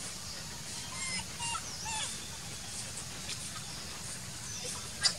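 A few short, high animal squeaks and chirps, some gliding in pitch, over a steady low background hum, with one sharp click near the end.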